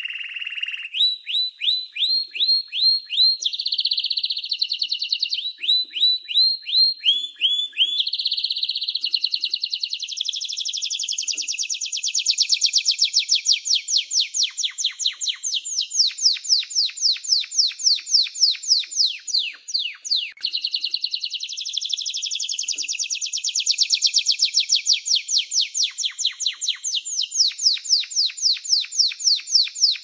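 Canary singing a long continuous song of repeated phrases. It starts with series of falling whistled notes, about four a second. From about nine seconds in it switches to fast rolling trills of rapid falling notes, with a brief gap around twenty seconds.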